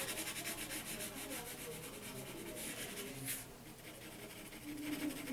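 Colored pencil rubbing on paper in rapid back-and-forth shading strokes, eased to a light pressure for a gradual blend; the strokes thin out for about a second past the middle, then pick up again.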